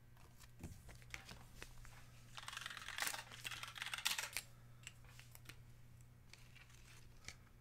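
Faint typing and clicking on a computer keyboard, with short rustling about two and a half and four seconds in, over a low steady hum.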